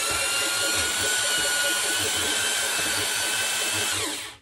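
A corded drill driving a stone cylinder hone inside a Mercury 150 outboard block's cylinder bore, running steadily with a motor whine and an uneven low pulsing. It stops shortly before the end.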